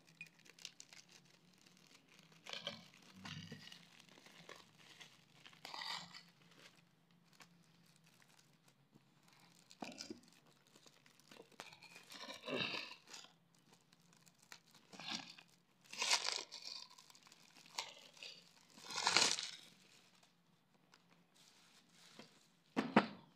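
Clear plastic shrink-wrap being picked at and torn off a cardboard wafer box by hand: irregular crinkling and tearing in short bursts every few seconds, the loudest near the end.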